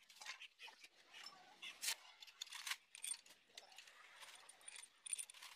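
Irregular light metallic clicks and clinks of tools and engine parts being handled on a disassembled diesel engine, the sharpest a little under two seconds in.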